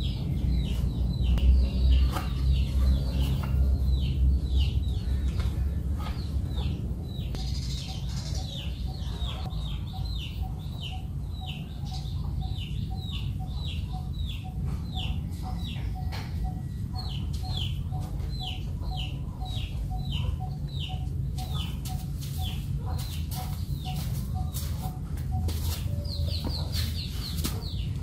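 Chickens nearby: a long run of short, high, falling peeps, two or three a second. Through the middle of it comes a steady, evenly spaced low clucking about twice a second.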